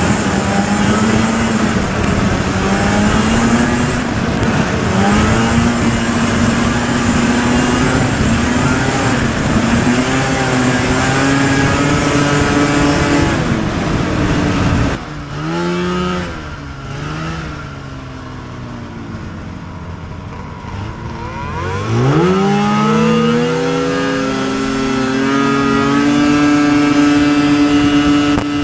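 Vintage two-stroke snowmobile engine heard from on board at speed, its pitch wavering and slowly climbing. About halfway through the throttle is let off and the engine drops to a lower, quieter note for several seconds. It then accelerates with a quick rising whine back up to steady high revs.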